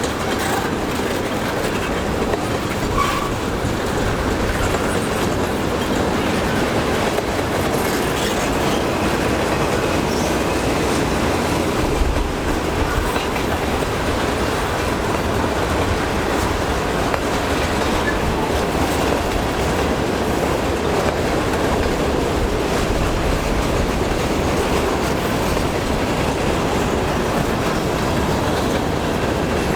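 Freight train rolling past, a steady rumble of steel wheels on rail with clickety-clack over the rail joints.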